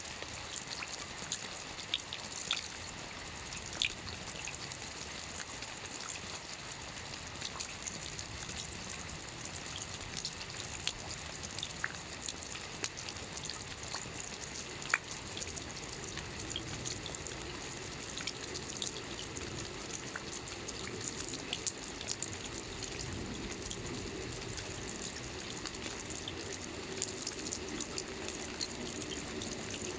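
Steady rain with scattered individual drops ticking, and a fuller run of water, like runoff from a gutter or spout, building up from about halfway through.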